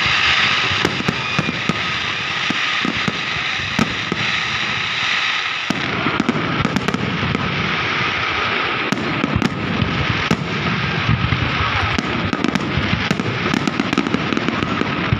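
Fireworks display: many shells bursting at once in a continuous dense crackling and popping, with no pause.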